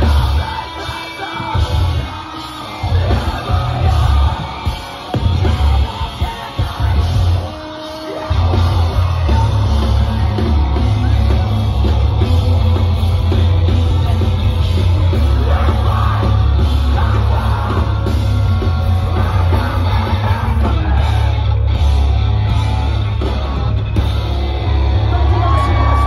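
Live rock band playing loud over a festival PA, with vocals: stop-start hits with short gaps for about the first eight seconds, then the full band kicks in and drums and bass run on without a break.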